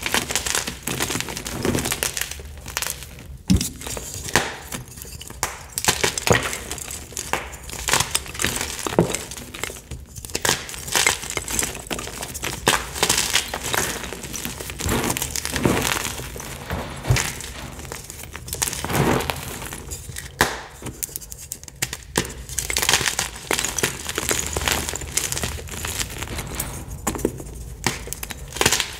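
Blocks of Picsil gym chalk (magnesium carbonate) crushed and crumbled between the fingers: a dense, irregular run of crisp crunches and crackles, with dry powdery rustling between them.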